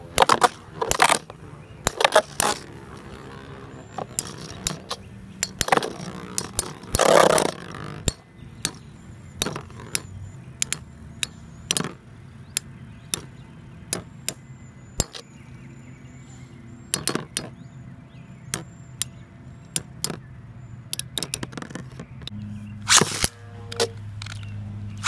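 Two metal Beyblade tops, Galaxy Pegasus W105R2F and Sol Blaze V145AS, spinning in a plastic stadium, their metal wheels clashing in sharp clicks and cracks at irregular intervals over a steady spinning hum. There is a quick flurry of hits about seven seconds in, and another near the end.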